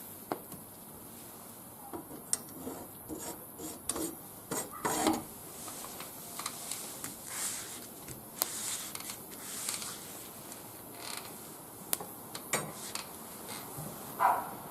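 Small wood fire in a barbecue grill, with irregular crackles, sharp clicks and short scraping sounds as the burning wood and sticks shift and are handled.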